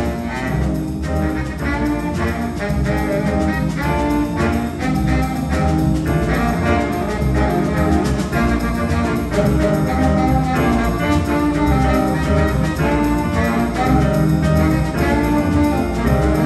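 Jazz big band playing: saxophones, trumpets and trombones over piano, guitar and double bass, loud and continuous.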